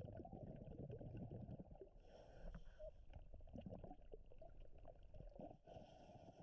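Faint, muffled underwater ambience: a low rumble with scattered clicks and crackles, and two short spells of faint hiss.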